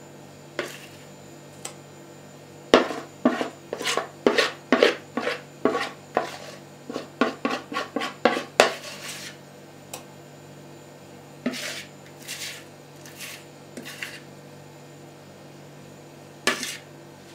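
A spoon knocking and scraping against dishes as thick cottage-cheese casserole mixture is worked from a bowl into a multicooker's nonstick inner pot. A quick run of sharp knocks, about two a second, goes from about three seconds in to about nine seconds, followed by a few scattered knocks.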